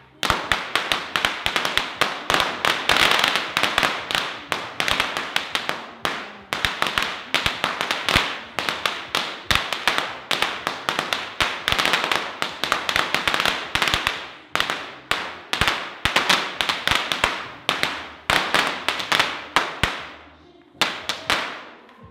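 A long string of Tết firecrackers burning down: a rapid, unbroken crackle of sharp bangs that thins out near the end, with a last few pops after a brief lull.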